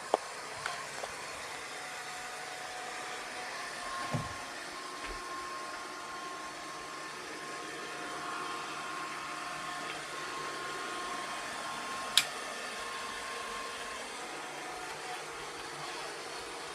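Electriq robot vacuum cleaner running, a steady motor and fan hum with a faint whine. A few sharp knocks cut across it, the loudest about twelve seconds in.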